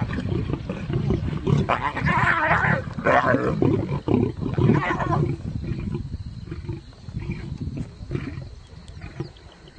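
Lions growling and snarling in a run of loud, irregular bursts that thin out and fade over the second half.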